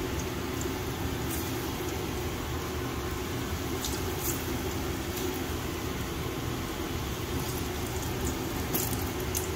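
Saba bananas frying in olive oil in a pan: a steady sizzle with a few faint pops.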